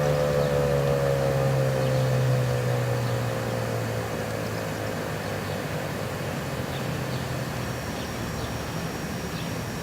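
Federal Signal 2001-130 electromechanical siren winding down at the end of its test, its pitch sliding steadily lower and fading out over the first few seconds. Steady outdoor background noise follows, with faint high chirps near the end.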